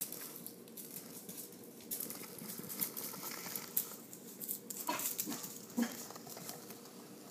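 Kitten's paws and claws pattering and skittering on a hard laminate floor as it runs and plays, in quick irregular taps. A couple of brief animal calls come about five to six seconds in.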